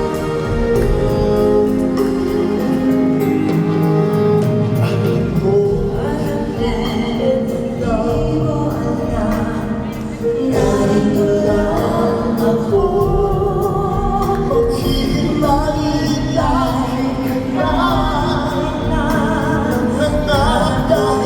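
Live concert music: singing over instrumental accompaniment, with long held notes.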